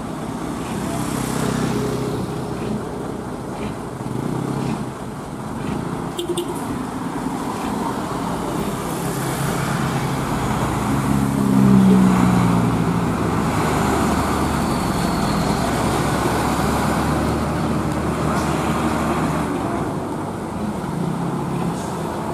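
Road traffic passing close by: motorcycle and car engines and tyres on the road, with one vehicle loudest as it passes about halfway through.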